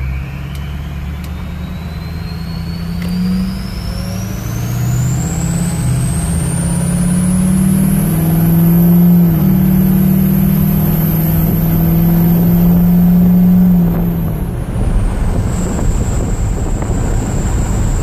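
6.0 Powerstroke turbo-diesel V8 accelerating under load while towing a trailer, its KC 10-blade turbo whistling: a thin high whistle climbs steadily for about eight seconds and holds, over an engine note that rises with two brief dips. A little before the end the engine note drops away as the throttle lifts and the whistle slides down to a lower steady tone.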